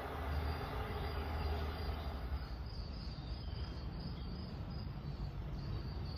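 Insects trilling in a steady, pulsing high chirr over a low, even rumble.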